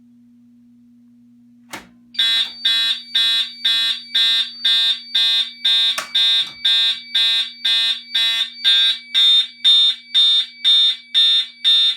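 A sharp click, then a fire alarm horn sounds in march-time code: loud pulsed blasts, about two a second.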